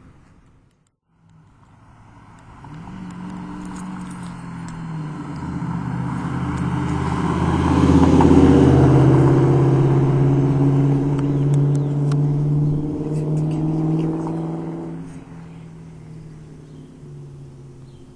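2000 Ford Mustang GT's 4.6-litre V8 through an SLP Loudmouth exhaust, doing a fly-by: the exhaust grows louder as the car comes up, is loudest about eight seconds in as it passes, then fades as it drives away. A brief silence comes before it at the very start.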